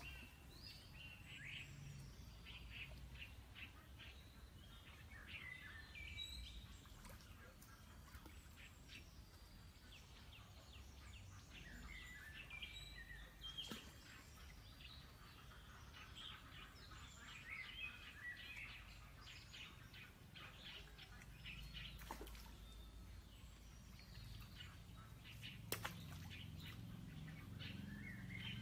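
Faint birdsong: many small birds chirping and warbling on and off, over a low rumble, with a few sharp clicks, the loudest near the end.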